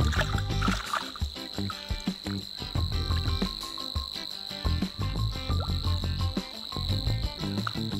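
An insect trilling steadily on one high pitch, with irregular low rumbles of wind buffeting the microphone.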